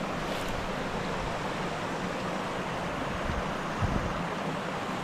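Mountain trout stream rushing steadily over rocks: a continuous hiss of moving water, with a couple of faint low thumps about four seconds in.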